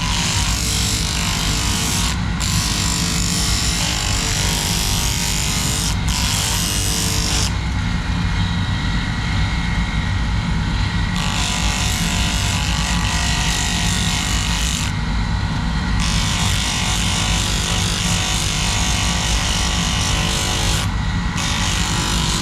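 Electric power tool, such as a grinder, running steadily with a motor hum. Its high hiss drops out for a few short stretches, longest from about 7 to 11 seconds in.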